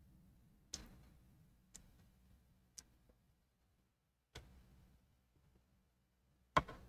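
About five faint, sharp clicks at irregular spacing, the last one near the end a little louder, over a low steady hum: a smartphone fitted with a FLIR thermal camera being held and handled.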